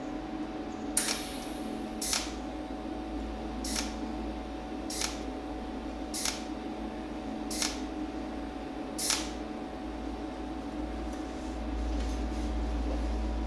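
Cold welder's tungsten-electrode torch firing spot welds onto a steel bearing ring: seven short, sharp zaps, one every second or so, each laying a new weld spot over the tail of the last. A steady hum runs underneath, and the zaps stop about nine seconds in as the short weld run is done.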